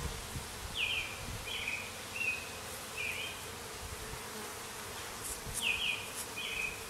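Honey bees buzzing around an open hive, a steady hum. A bird sings a short phrase of several quick notes twice, near the start and again near the end.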